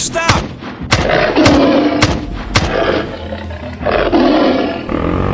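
A string of sharp bangs in the first half, with two long roaring growls, one about a second and a half in and another about four seconds in.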